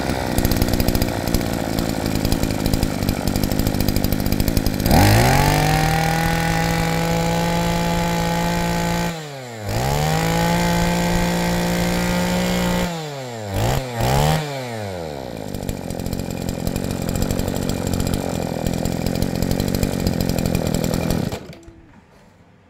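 Maruyama BCS20CSN brush cutter's small two-stroke engine running: it idles, is revved up about five seconds in and held at full throttle for about four seconds, dropped and revved again, blipped twice quickly, then settles back to idle and is switched off about a second before the end.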